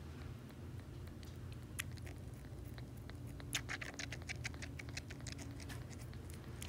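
Kitten suckling formula from a small nursing bottle: quick clicking and smacking sounds of its mouth on the nipple, a few at first, then coming thick and fast from about halfway through.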